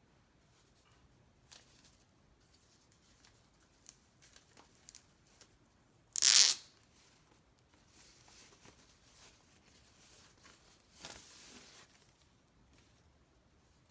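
Packaging being torn open by hand: scattered small clicks and rustles, one loud, short tear about six seconds in, and a second, softer tear near the end.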